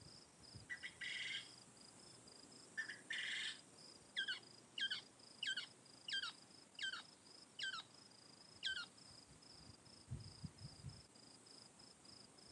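A bird sings a series of seven clear, downward-sliding whistled notes, evenly spaced, after two short harsh calls. A steady high, pulsing insect trill runs underneath.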